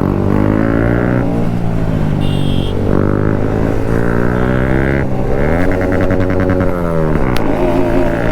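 Bajaj Pulsar RS200's single-cylinder engine accelerating through the gears: its pitch climbs, drops back at each shift and climbs again, then falls briefly as the throttle closes near the end before rising once more.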